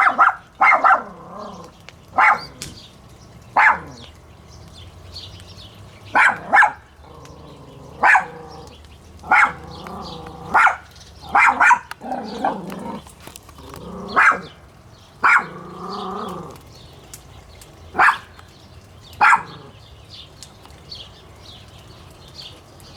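A dog barking repeatedly: single sharp barks spaced one to a few seconds apart, about fifteen in all.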